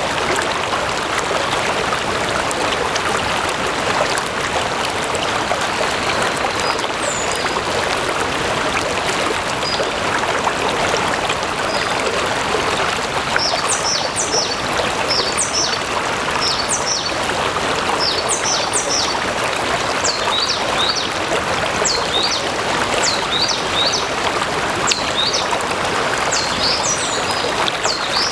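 Stream water flowing and burbling steadily. From about halfway through, a bird calls repeatedly with short high chirps over the water.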